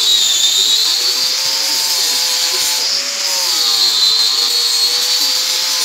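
Angle grinder grinding rust off a steel axe head. It gives a steady, high-pitched grinding whine whose pitch sags and recovers as the disc is pressed into the metal and moved across it.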